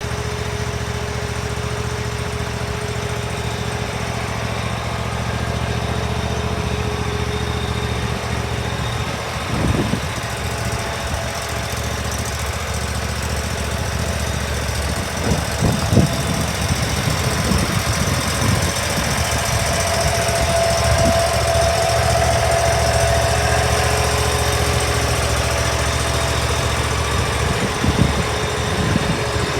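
Dixie Chopper X-Caliber zero-turn mower's engine running steadily, a little louder in the second half. A few short knocks sound over it, about ten, sixteen and twenty-eight seconds in.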